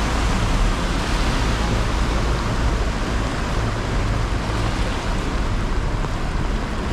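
Steady rushing noise of heavy rain and floodwater over the road, with a low rumble underneath.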